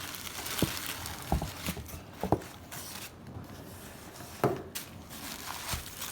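A handful of light, separate knocks and clicks from cardboard packaging and paper inserts being handled during an unboxing.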